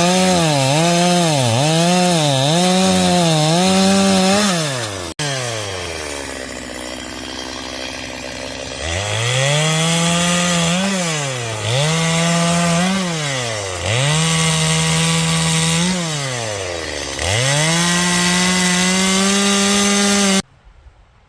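Chainsaw bucking a downed tree: the engine revs high and repeatedly bogs down in pitch and recovers as the chain bites into the wood. For a few seconds after about five seconds it drops to a low idle, then revs back into the cut with more dips and a long steady high rev, and cuts off suddenly near the end.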